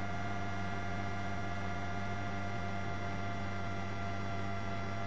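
A steady hum made of several fixed tones, unchanging in level throughout, with no beat or rhythm to it.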